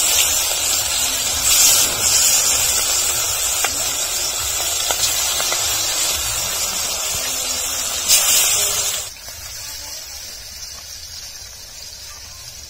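Rohu fish pieces frying in hot mustard oil in a kadhai, a loud steady sizzle. About nine seconds in it drops abruptly to a quieter sizzle.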